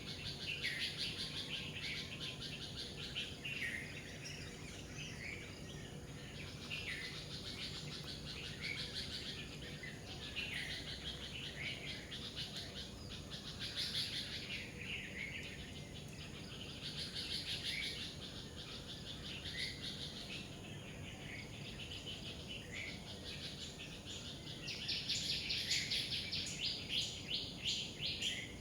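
Birds singing and chirping in repeated bursts of quick notes every couple of seconds. Near the end there is a louder run of rapid chirping.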